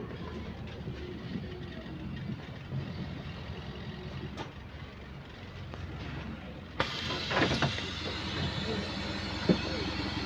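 Bus engine running steadily, heard from inside the passenger cabin, on a bus with a small exhaust leak. About seven seconds in, a sudden louder hiss and rattle sets in, with a few knocks.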